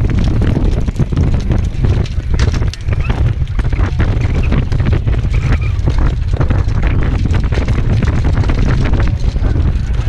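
Heavy wind rushing over the microphone of a camera on a harness-racing sulky moving at speed, with irregular clatter from the horse's hooves and the sulky on the dirt track.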